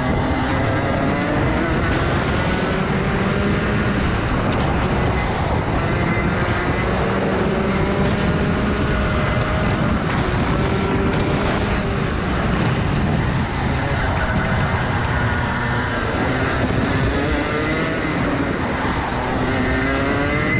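Rotax Max Evo 125cc single-cylinder two-stroke kart engine at racing speed, heard from the kart itself. Its pitch rises and falls several times as the kart accelerates down the straights and slows for the corners.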